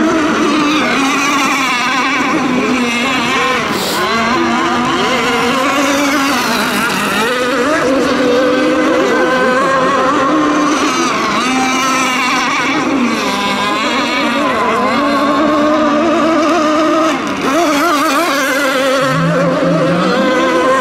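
Several radio-controlled racing boats running flat out together, their motors whining at high revs, the overlapping pitches rising and falling as the boats lap the course.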